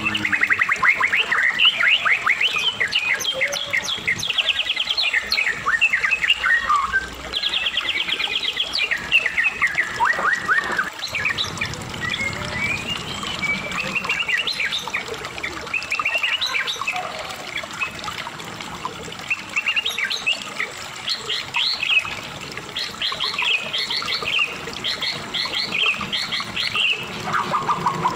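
White-rumped shama (murai batu, Medan type) singing without pause: a fast, varied run of trills, chirps and sweeping whistled phrases, one after another.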